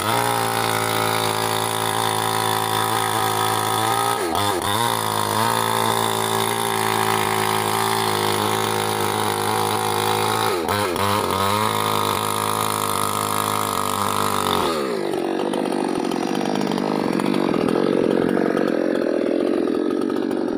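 Small two-stroke chainsaw engine running at a steady speed, its note dipping briefly three times; about fifteen seconds in the steady note gives way to a rougher, wavering sound at the same loudness.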